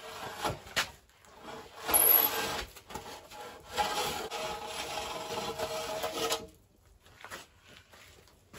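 Hand plane skip-planing a rough-sawn timber rail: a few shaving strokes along the board, the loudest about two seconds in and the longest lasting over two seconds, taking only the rough surface off.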